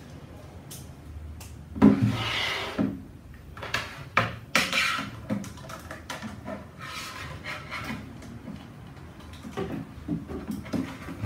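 Handling noise as a power cable is pulled out and laid along a long measuring rule over a table: a knock about two seconds in, then rubbing and rustling, and a quick run of light clatters near the end.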